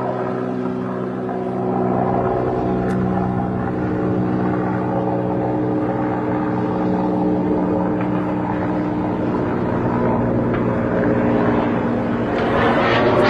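Military helicopter flying overhead, a steady drone with an even pitched hum from its rotor and engine.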